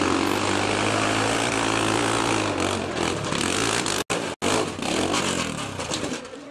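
Modified hill-climb motorcycle engine running at a steady pitch, the sound cutting out twice for an instant about four seconds in, then fading away over the last couple of seconds.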